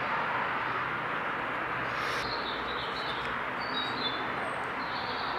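Steady outdoor background hiss with a few faint, short, high bird chirps about four seconds in.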